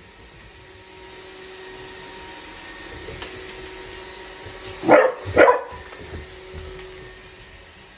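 A puppy barks twice in quick succession about five seconds in, over the steady hum of a running robot vacuum cleaner.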